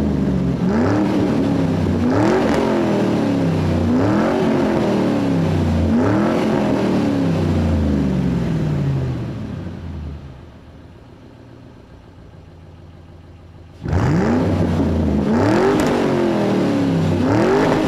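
Car engine revved in repeated quick throttle blips, about one every two seconds, each pitch jump rising fast and sinking slowly. It drops away to a much quieter level for about four seconds, then the blips start again near the end.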